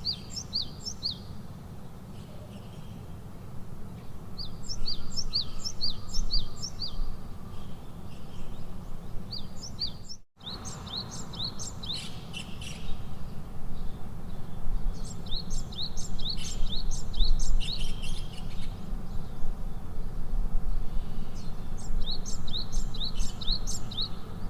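A songbird singing repeated phrases of six to eight quick, high, down-slurred chirps, one phrase every few seconds, over a steady low rumble. The sound cuts out for an instant about ten seconds in.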